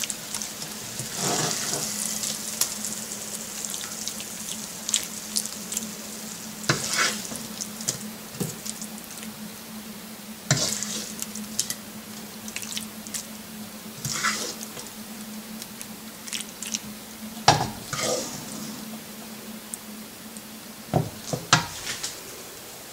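A serving spoon scrapes and knocks as thick meat curry is dished out into a glass bowl, in a scatter of separate clinks and scrapes. Under them runs a faint sizzle and a steady low hum.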